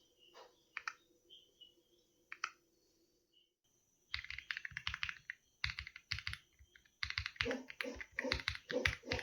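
Aula F75 75% mechanical keyboard being typed on: a few single keystrokes, then fast, continuous typing from about four seconds in.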